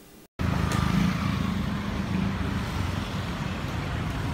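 Street traffic with motorcycles riding past: a steady engine hum, starting abruptly about a third of a second in.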